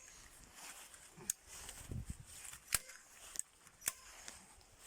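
A few sharp single clicks a second or so apart, typical of a hand staple gun fastening plastic film and insulation to a hut wall, with a soft thud and faint rustling of the film in between.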